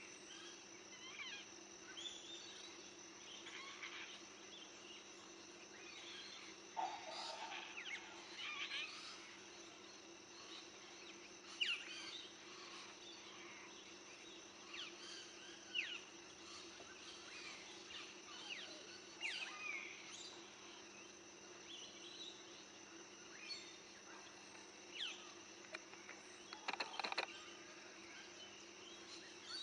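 Birds calling with many short, sharp chirps, mostly quick falling notes, scattered over a steady high buzz and a faint low hum.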